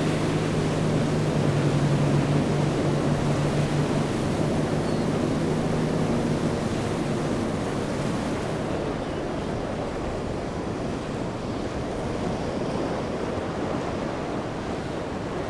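Waves and surf rushing in rough inlet water, with wind buffeting the microphone. A boat engine's low steady drone is heard under it for the first several seconds, then fades away.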